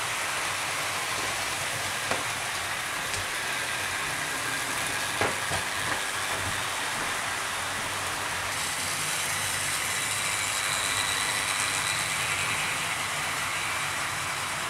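00 gauge model trains running round a layout, including Castle class and Flying Scotsman locomotives: a steady whirr of small electric motors and wheels rolling on the track, with a few light clicks.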